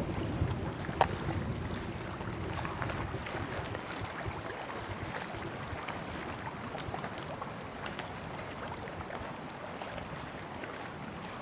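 Outdoor lakeshore ambience: wind buffets the microphone in low rumbling gusts that die away after about two seconds, leaving a steady faint rush of wind and lake water with small scattered ticks.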